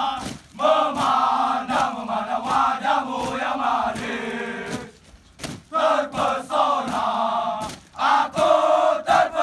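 A group of men chanting and shouting in unison as a team cheer, in long, steady chanted phrases with short breaks about five seconds in and just before eight seconds.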